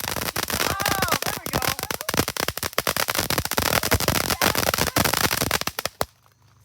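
Consumer fireworks popping and crackling in a rapid, dense string of sharp cracks, stopping abruptly about six seconds in.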